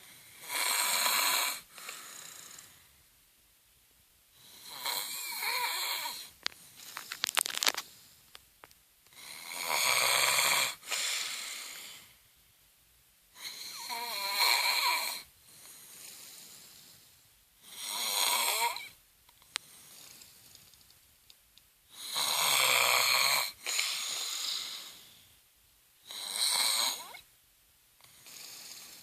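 A woman snoring in her sleep: seven loud snores about every four seconds, each trailing off into a quieter stretch, with a brief crackly rattle after the second.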